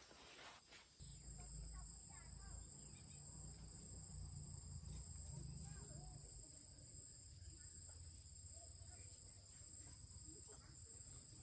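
Insects trilling steadily at a high pitch, starting abruptly about a second in, over a low rumble.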